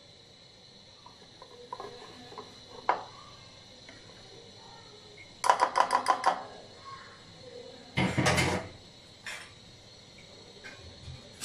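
Wire whisk clinking against a bowl: light scattered taps, then a quick run of about eight sharp clinks halfway through, and a louder clatter a couple of seconds later.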